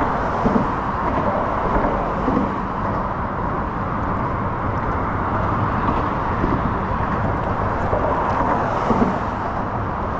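Steady road noise of traffic crossing a long highway bridge.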